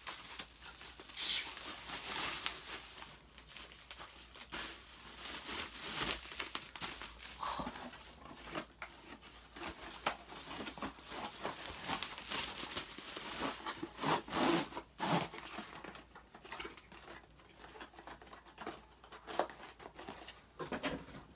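Packaging being handled: crinkling plastic and cardboard rustling with scattered small knocks and clicks, as a tripod stand is packed back into its box.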